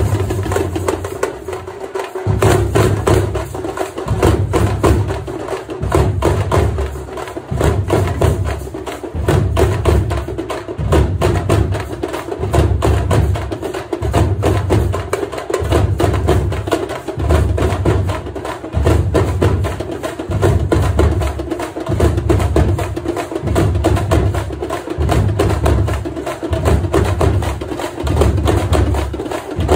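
A troupe of Tamil temple-festival drums beating a fast, dense rhythm over a deep beat that comes back about three times every four seconds. The rhythm breaks off briefly about two seconds in, then picks up again and holds steady.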